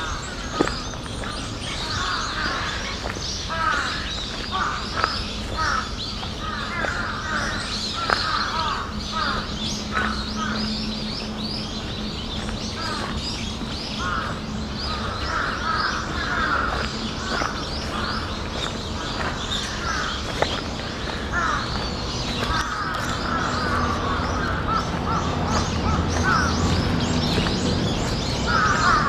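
A flock of crows cawing over and over, many calls overlapping without a break, which the recordist takes for crows calling a warning of an earthquake.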